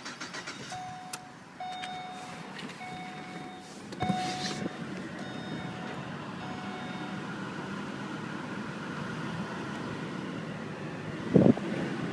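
Holden VE Commodore's in-cabin warning chime beeping over and over at an even pace. About four seconds in, a steady whirring comes up and keeps running. A single loud knock falls near the end.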